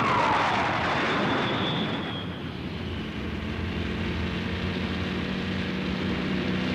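Animation sound effects: a falling, whistling rush as a burning object plunges through the sky, the pitch dropping over about a second. After about two seconds it gives way to the steady hum of a car's engine as it drives along.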